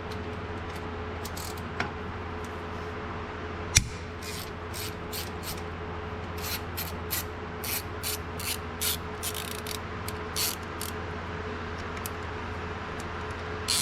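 Steady low hum with a single sharp knock about four seconds in, then a run of short, irregular metallic clicks and scrapes from hand tools working on a track wheel hub to check its oil.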